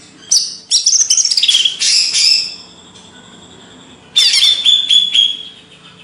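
Cucak ijo (green leafbird) singing in two bursts of rapid, high sweeping notes; the first bout lasts about two seconds, and a shorter one starts about four seconds in.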